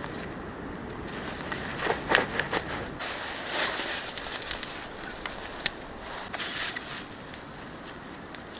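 Rustling and clicking of camping gear being handled by hand, backpack straps and buckles and cloth, in short irregular bursts with one sharp click about two-thirds of the way through, over a steady outdoor hiss.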